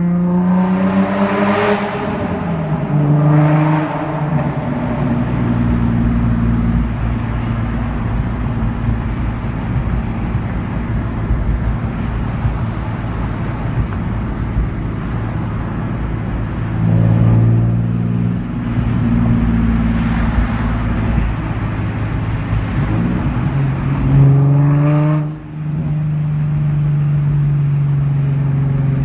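Loud straight-piped exhaust of a 2005 Nissan 350Z's VQ35DE V6, with muffler and resonator deleted, under way mostly at steady revs. The revs fall at the start and lift briefly around the middle. Near the end they climb sharply, the sound cuts out for a moment, then steady running resumes.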